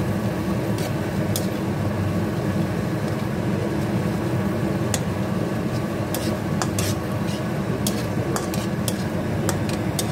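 A spatula stirring and scraping thick onion-garlic masala paste as it fries in oil in a kadhai, with a sizzle and scattered sharp clicks of the spatula against the pan. A steady low hum runs underneath.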